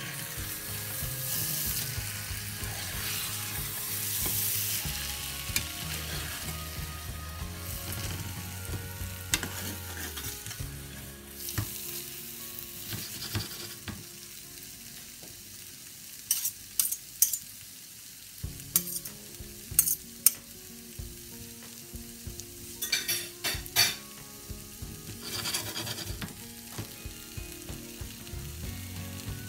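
Scrambled eggs, ham and vegetables sizzling in a frying pan while a spatula stirs and turns them. The hiss is strongest in the first few seconds. In the second half, sharp clicks and scrapes of the spatula against the pan come in several quick clusters.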